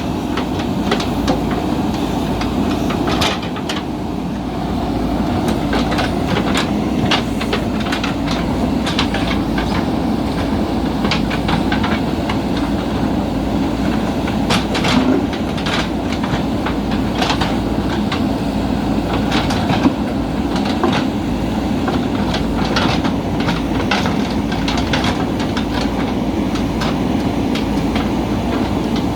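JCB backhoe loader's diesel engine running steadily under working load, with frequent irregular clanks and knocks.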